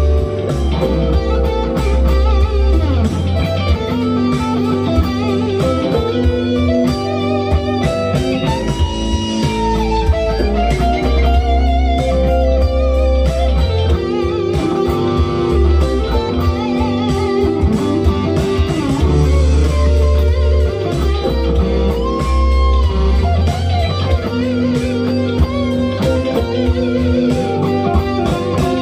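Harley Benton DC-580 SG-style electric guitar with humbucker pickups, played through an amplifier. It plays lead lines, with a few bent notes, over a funk groove backing track in G with bass and drums.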